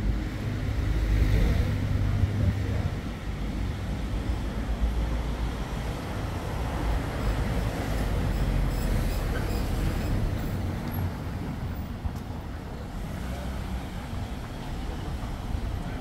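Street traffic noise: motor vehicles driving past with a steady low rumble that swells about a second in and again around the middle.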